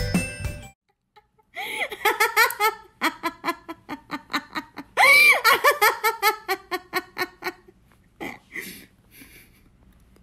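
A woman laughing hard in quick repeated bursts, with a high squealing peak about halfway through, then trailing off into a few fainter breaths of laughter near the end.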